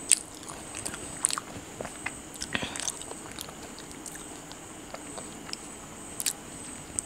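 Someone chewing homemade pizza with her mouth closed, picked up close by a clip-on microphone: scattered small crunches and mouth clicks at irregular moments. A faint steady high whine sits underneath.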